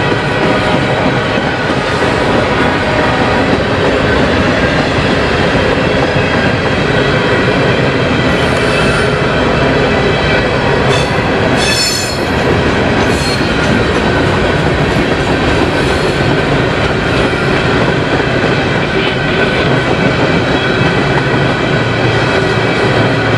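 Empty steel coal hopper cars of a freight train rolling past close by: a loud, steady noise of wheels on rail. A brief high-pitched wheel squeal comes about halfway through.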